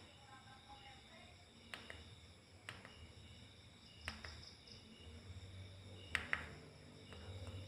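Faint crickets chirping steadily, with a few sharp clicks scattered through, the loudest pair about six seconds in.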